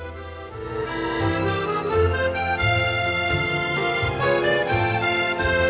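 Instrumental background music: held melody notes over a bass line that steps from note to note, growing louder about a second in.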